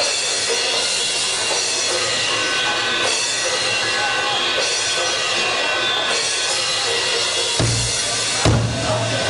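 Live rock drum solo on a full drum kit: drums under a steady wash of cymbals, with heavy bass drum strokes coming in near the end.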